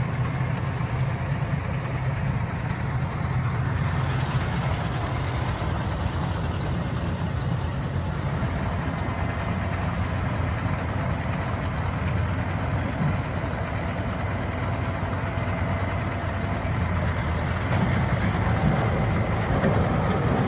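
Heavy engine of a tracked armoured vehicle running with a low, steady rumble, getting a little louder near the end.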